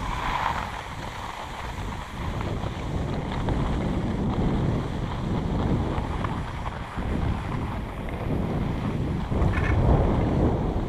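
Wind buffeting the microphone, with skis sliding over packed, groomed snow while being towed up a ski drag lift.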